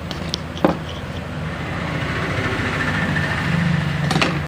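An engine running with a steady low hum that grows louder, with a single click about two-thirds of a second in, cut off suddenly at the end.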